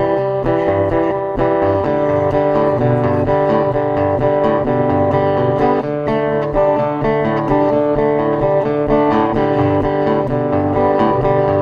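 A live band playing an instrumental guitar passage of a country-style song, with a steady low bass line beneath the guitar.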